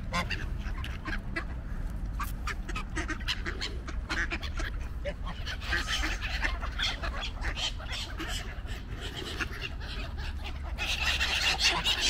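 Geese honking and ducks calling close by. Many short sharp clicks run through it, and the calling grows busier around the middle and again near the end.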